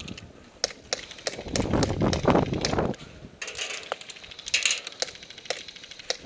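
Movement noise from a player moving between cover: scattered sharp clicks and knocks, low rumbling from wind or handling on the microphone a second or two in, and two brief rustles later.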